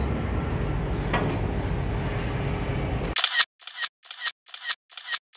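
Steady outdoor wind noise on the microphone with a faint click about a second in. Then, about three seconds in, it cuts to silence and a rapid run of camera-shutter clicks begins, about two and a half a second with silence between, like a burst of photos being taken.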